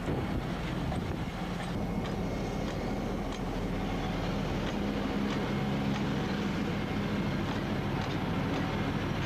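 ST44 (Soviet M62) diesel locomotive's two-stroke V12 diesel engine running steadily with a deep drone as the locomotive rolls past hauling a train. Scattered sharp clicks come from the wheels on the rails.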